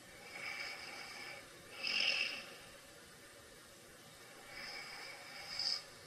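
A sleeping person snoring and breathing noisily through the nose, with a hissing, faintly whistling edge. There are two breaths: each starts softly and ends in a louder snort, the first about two seconds in and the second near the end.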